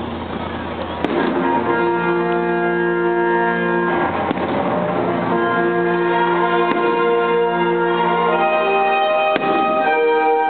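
Patriotic music with long held chords playing over loudspeakers for a firework show, cut by a few sharp firework bangs: one about a second in, another near the middle and one near the end.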